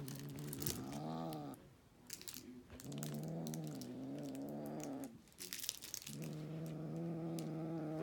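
Siamese kitten growling over a toy held in his mouth: three long, low growls of about two seconds each, wavering in pitch, with clicks and rustling of toys and the plastic toy box in the gaps between them.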